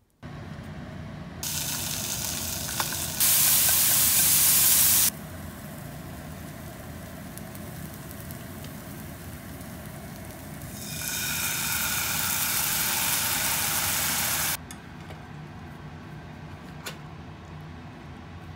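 Food sizzling in a frying pan, in two loud stretches over a steady low hum. The first builds in a step and is loudest for about two seconds; the second starts about eleven seconds in and lasts about three and a half seconds.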